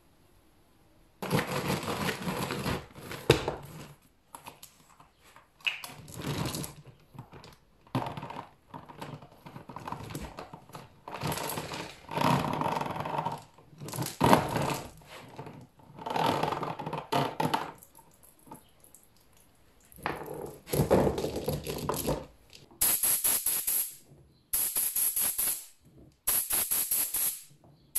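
Metal roller chain clattering and diesel sloshing as a motorcycle drive chain is pulled out of a plastic bottle where it soaked in diesel, in a series of separate bursts of rattling. Near the end come sharper, brighter bursts of fast clicking.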